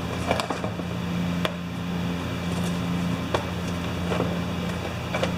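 Steady low machine hum with a few short, sharp clicks and taps spread through it, like small parts being handled on a workbench.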